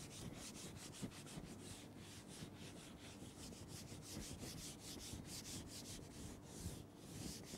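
Whiteboard eraser rubbing marker off a whiteboard in quick, repeated back-and-forth strokes, faint.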